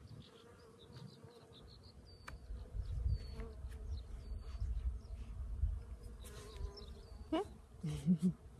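Honeybees buzzing steadily around flowering meadow weeds, with short bird chirps now and then and a low rumble underneath.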